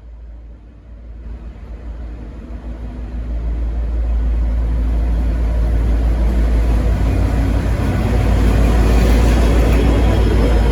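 V/Line N class diesel-electric locomotive's engine working hard as the train pulls away, a deep steady rumble that swells louder over the first few seconds and then holds.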